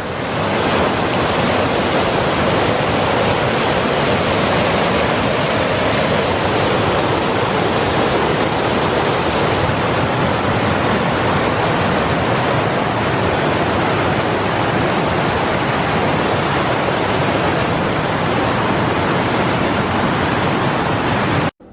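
Waterfall rushing close to the microphone: a loud, steady, unbroken noise of falling water that cuts off suddenly near the end.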